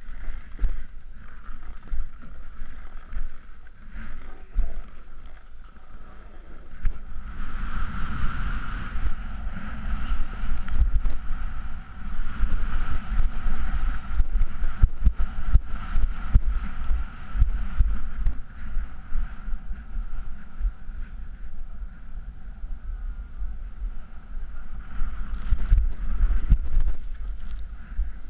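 A snowboard sliding and scraping over crusty, tracked snow, with wind buffeting the helmet camera's microphone as a constant low rumble. The scraping hiss grows louder about seven seconds in, keeps on through the middle, and comes back briefly near the end.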